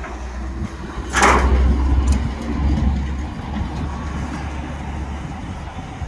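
Vehicle engines running with a steady low rumble, and a brief rush of noise about a second in.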